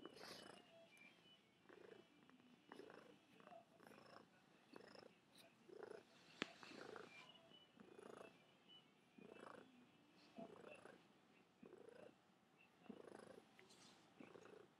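Calico cat purring softly, close up, the purr coming in even pulses about every two-thirds of a second. A single sharp click comes about six and a half seconds in.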